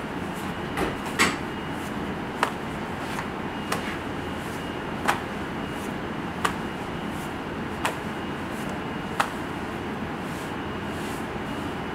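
Pizza dough being stretched by hand, slapped and flipped against a marble worktop with a sharp slap about every second and a half. Under it runs the steady hiss of kitchen ventilation.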